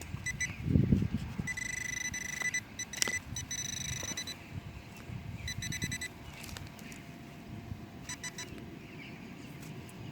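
Metal detector giving its target tone: a steady high beep that cuts in and out in repeated bursts, the sign of a buried metal target being located. A few dull thumps sound in the first second or so.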